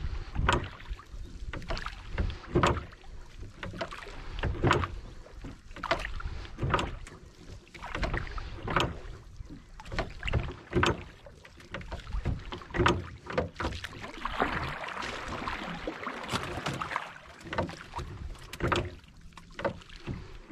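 Small wooden boat being rowed or poled: repeated wooden knocks of the oar against the hull, about one every second, some coming in pairs, over a faint water hiss.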